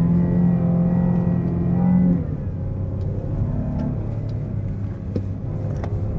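Chrysler 300's 3.0-litre petrol V6 pulling steadily under throttle, then easing off about two seconds in and running on more quietly at lower revs.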